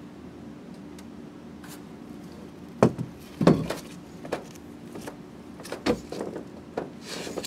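A metal stunt scooter is set down onto a plywood ramp with two loud clattering knocks about three seconds in. Lighter thuds of footsteps on the wooden ramp follow. A steady low hum runs underneath.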